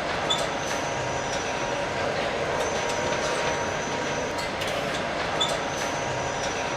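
Steady industrial machinery noise, a dense even din with a thin steady whine and a few light clicks, swelling in at the start and fading out near the end.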